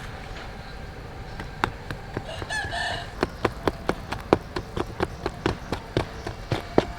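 A rooster crows once, briefly, about two and a half seconds in, over sharp knocks that come about three a second through the second half.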